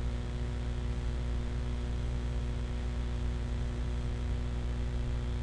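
Steady low electrical hum with an even hiss, the background noise of the recording setup, with no distinct events.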